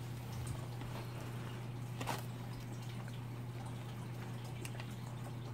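Quiet room tone: a steady low hum with a single faint click about two seconds in.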